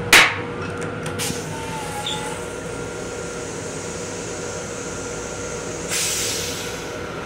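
Steady running noise and electrical hum inside an M7 electric multiple-unit railcar. A sharp clack just after the start fits the toilet seat coming down onto the bowl, and a softer click follows about a second later. A hiss of about a second and a half comes near the end.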